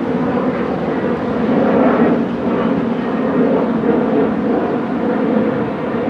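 Trinity Railway Express diesel commuter train pulling away, a loud, steady drone from its locomotive with the rumble of the cars on the rails.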